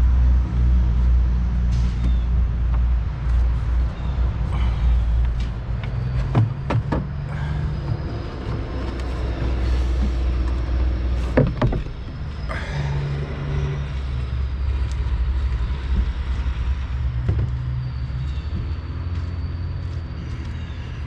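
A steady low rumble with a few sharp clicks and knocks, the clearest about six, seven and eleven seconds in, as the engine's air box is worked loose and lifted out.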